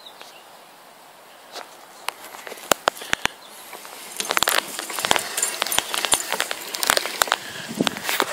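Troy-Bilt Revolution Quiet Cut manual reel mower pushed across short grass: the spinning reel blades snip the grass against the bed knife with a rapid, uneven clicking and crackling hiss. The sound starts faint and becomes a dense clatter from about four seconds in.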